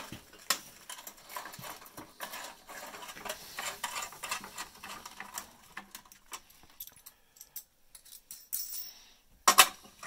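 Small metallic clicks and rattles as a cable connector is fitted into a knockout of a sheet-metal electrical box and its locknut threaded on by hand, with a louder clack near the end.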